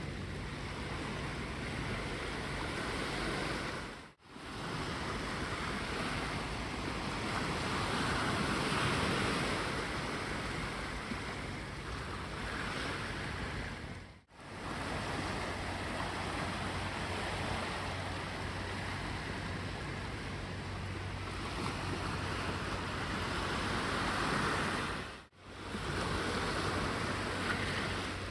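Sea waves washing onto the beach, the surf swelling and easing over several seconds at a time. The sound cuts out briefly three times.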